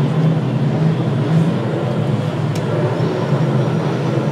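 Mercedes-Benz M117 5-litre twin-turbo V8 of a 1986 Sauber Mercedes C8 Group C car idling steadily, with no revving.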